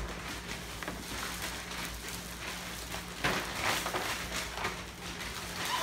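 Plastic bags rustling and crinkling as they are handled, in irregular crackles, over a faint steady hum.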